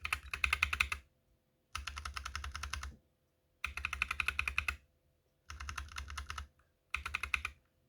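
Unlubed Holy Panda and Novelkeys Box Royal tactile mechanical keyboard switches in a GMMK keyboard, pressed rapidly in turns. They make bursts of clacks about a second long, with short pauses between them. Every other burst is louder, and the Holy Panda is the higher-pitched and louder of the two.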